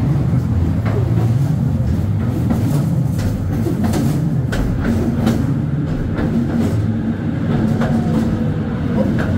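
Blue Mountains Scenic Railway incline car running on its rails inside a tunnel: a steady rumble with scattered clicks and clatters. A low hum comes in about halfway through and fades near the end.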